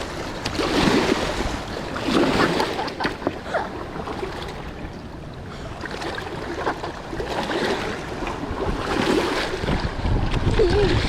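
Gusty wind buffeting the microphone, with choppy water washing against the shore.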